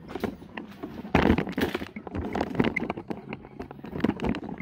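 Footsteps and scuffing across a concrete garage floor with handheld-camera handling noise: a string of irregular knocks and scrapes, loudest about a second in.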